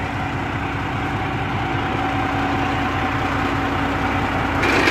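Semi-truck tractor's diesel engine idling steadily, with a low, even pulsing hum. A brief noisy burst comes near the end.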